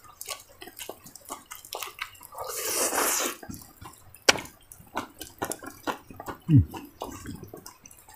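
Close-up wet chewing and lip-smacking, many small moist mouth clicks, with a longer breathy sound around three seconds in and a short falling "mm" hum about six and a half seconds in.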